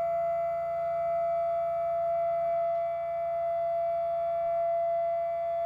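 CNC router spindle motor running with a steady high-pitched whine, a weaker low hum beneath it, as the machine starts its carving job.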